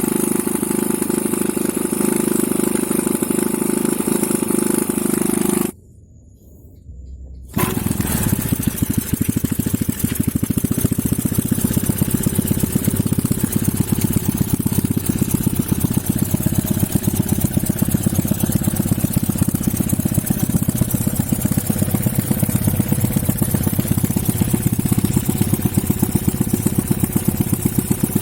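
Homemade four-stroke engine built from a refrigerator compressor, running. The sound drops away abruptly for about two seconds, about six seconds in, then returns as a fast, even stream of firing pulses.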